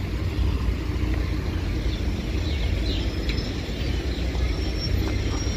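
Steady low rumble of minibus engines and road traffic at a bus stand, with no single event standing out.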